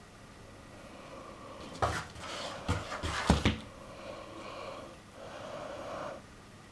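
A kitten pouncing at shadows, its paws knocking and thumping against a wooden cupboard door in a quick cluster of knocks around the middle. Soft breathy noise comes before and after.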